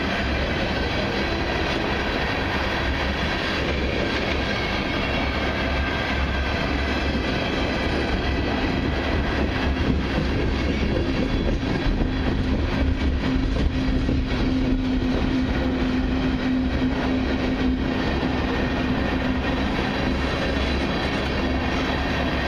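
Freight train of tank cars and covered hoppers rolling slowly past on steel wheels, with a continuous rumble and clacking over the rail. A steady low tone comes in about halfway through and drops away near the end.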